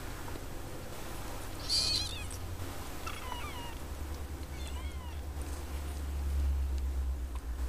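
Two-week-old Siamese kittens mewing: one loud high-pitched mew about two seconds in, then two fainter short mews that fall in pitch. Under them a low steady rumble grows louder near the end.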